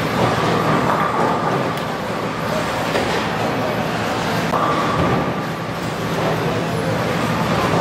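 Bowling alley din: a steady rumble of bowling balls rolling down the lanes, with a few knocks of balls and pins.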